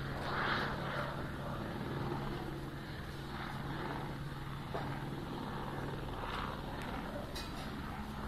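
Distant police helicopter in flight, heard as a steady low drone, with faint background noise swelling and fading over it.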